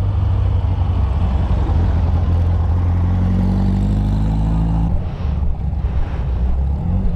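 Vehicle engine running under a heavy low rumble, rising in pitch as it accelerates from about three seconds in, then dropping back abruptly near five seconds.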